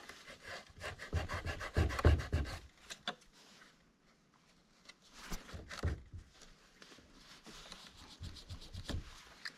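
Rubbing and scraping handling noises with scattered clicks, in two spells with a short pause about four seconds in.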